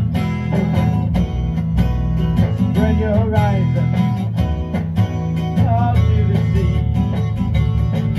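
Instrumental passage of an amateur rock band's song played back from reel-to-reel tape: guitar with lead notes that bend in pitch, over bass and drums.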